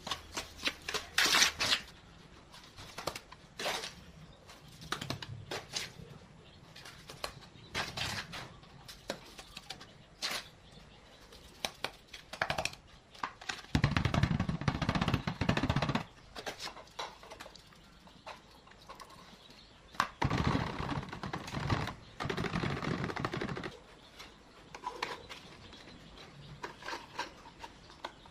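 Hand-working noise from a wet cement mix: a plastic spatula scraping and clicking in a plastic bowl, and cement being packed into thin clear plastic molds. The sounds are irregular scrapes and clicks, with two longer, louder stretches of scraping, one midway and one about two-thirds of the way through.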